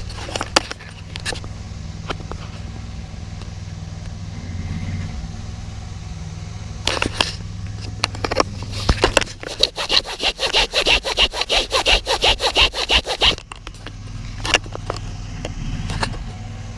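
A steady low engine hum runs throughout. In the middle, a brush scrubs back and forth rapidly, about four to five strokes a second, for about four seconds: the scrubbing of heavy oxidation off a house gutter.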